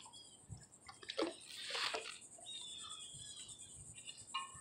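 Water splashing and dripping as a wet magnet-fishing rope is pulled up out of the water, loudest about a second in. Birds chirp repeatedly in the background.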